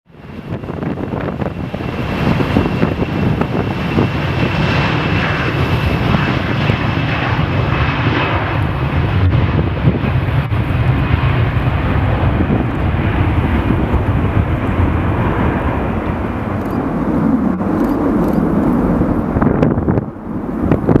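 Aeroflot jet airliner's engines at departure power: a loud, steady roar with a faint high whine that fades after the first half. Near the end, gusty wind buffets the microphone.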